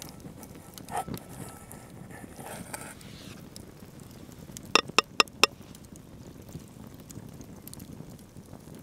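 Wood campfire crackling softly, with four sharp pops in quick succession about five seconds in.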